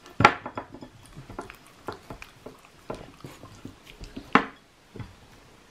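A Shiba Inu nosing and mouthing a whole persimmon on a plate: scattered short sniffs, clicks and small knocks against the plate. The loudest come just after the start and again about four seconds in.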